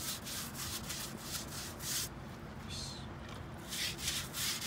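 Stiff-bristled scrub brush scrubbing back and forth over wet, weathered wooden fence boards, about three strokes a second. The strokes stop for about a second and a half midway, then start again.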